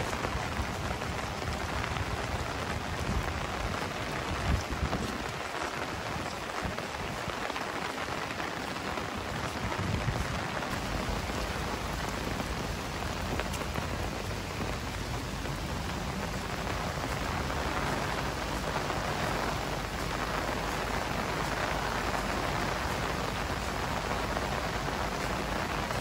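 Heavy rain falling steadily, a dense even hiss of drops on hard surfaces, with a few brief low rumbles in the first ten seconds.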